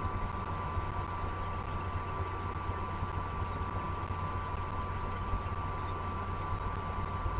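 Steady low drone with an even hiss and a faint steady hum, unchanging throughout, like a distant idling engine or the nest camera's own background noise.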